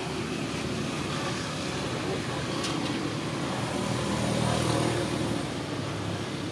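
Low engine rumble of a motor vehicle, swelling about four seconds in and then easing off as it passes. There is a single sharp click partway through.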